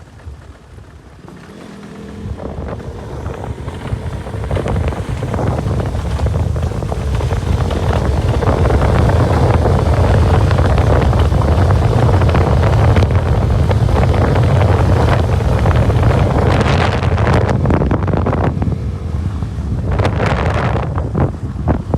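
Wind buffeting the microphone over a running motorcycle engine. It grows much louder over the first several seconds, then holds steady, as on a ride picking up speed.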